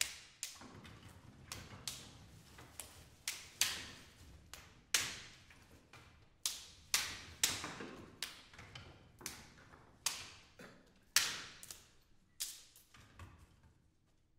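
Sharp, dry cracks and snaps of twigs and wooden sticks handled by several players, coming irregularly at roughly two a second, each dying away quickly; one louder crack comes about eleven seconds in.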